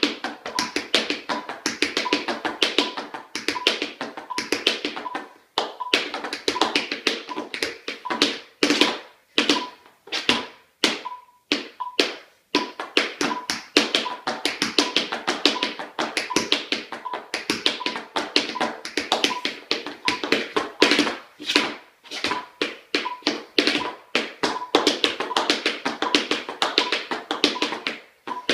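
Tap shoes striking a wooden floor in fast, rhythmic sequences of taps, with a few short pauses. A metronome beeps steadily underneath at 80 beats per minute.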